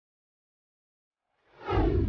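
Silence, then about one and a half seconds in a whoosh sound effect swells in. It slides down in pitch over a deep rumble and lasts about a second.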